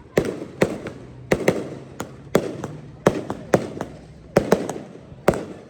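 Fireworks going off in quick succession: about fifteen sharp bangs at uneven intervals, two or three a second, each with a rumbling tail.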